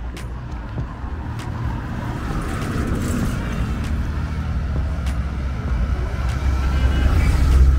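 Street traffic: a motor vehicle drawing near, its engine sound growing steadily louder toward the end.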